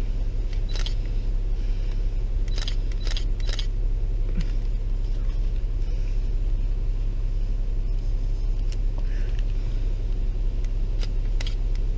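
Car engine idling, heard from inside the cabin as a steady low hum. Several short sharp clicks are scattered through it, three of them close together a few seconds in.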